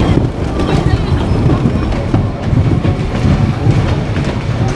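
An amusement-park ride train rumbling and clattering along its track.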